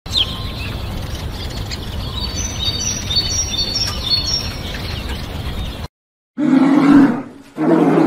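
Outdoor ambience: a steady low rumble with birds chirping. It cuts out just before 6 s, and after a short silence come two loud, deep calls about a second each, plausibly a polar bear growling.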